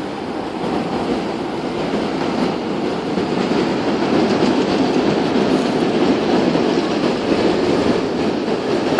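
A heavy vehicle approaching: a steady rushing rumble with faint clatter that slowly grows louder, without any horn.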